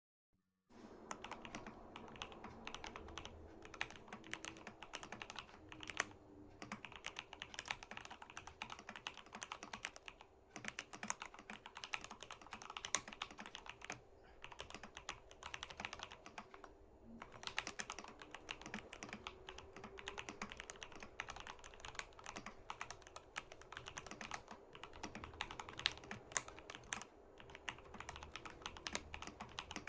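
Typing on a Vortex PC68 mechanical keyboard with Gateron Oil King linear switches: a fast, continuous stream of keystrokes that begins just under a second in, with short pauses every few seconds.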